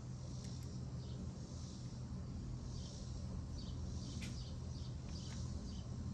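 Faint steady low hum with a few light clicks and short scrapes, as a small tool turns the bolt of a Quad Lock fork stem mount into a motorcycle's steering stem.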